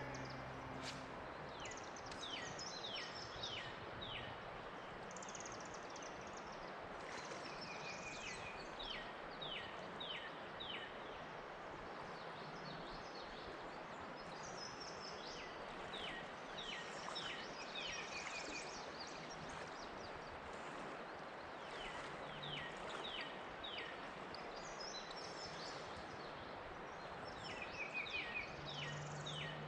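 Steady rush of flowing creek water, with a songbird singing bouts of quick, high, downward-sweeping notes every few seconds.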